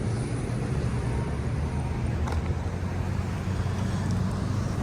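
Steady low engine rumble of a vehicle running nearby, with a faint click a little over two seconds in.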